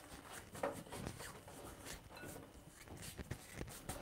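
Faint handling sounds at a kitchen sink: scattered light knocks and rubbing.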